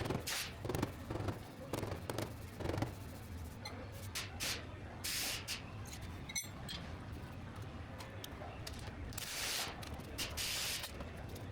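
Auto-body metal work: a few light knocks, then several short bursts of hiss, the longest two near the end, with one sharp click midway.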